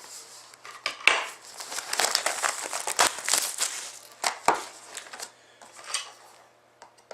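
Crinkling plastic wrapping and rustling cardboard as a sealed box of 2014-15 Fleer Showcase hockey cards is unwrapped and opened. The irregular crackling is busiest in the first few seconds and thins out near the end.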